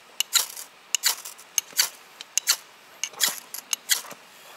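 Ferrocerium fire-starting rod scraped hard with a knife edge to throw sparks onto kindling: about a dozen quick, sharp scrapes, often in pairs, at an uneven pace.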